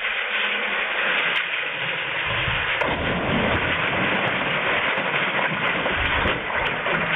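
Steady rushing hiss of water, an even noise with no clear pitch.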